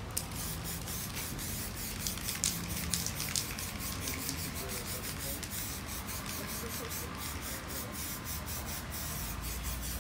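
Aerosol spray-paint can hissing in rapid short puffs, sprayed close to a board.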